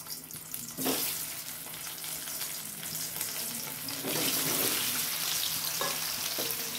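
Small whole potatoes sizzling as they go into hot oil in a frying pan. The sizzle swells about a second in, and again about four seconds in as the rest of the potatoes are tipped in from a bowl.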